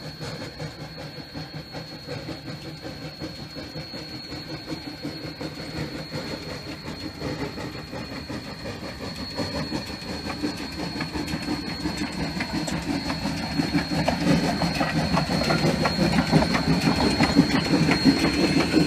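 D&RGW 315, a narrow-gauge class C-18 2-8-0 steam locomotive, running past on the rails, growing steadily louder as it comes close. There is a dense rapid clicking and rattling of running gear and rails, over a thin, steady high tone.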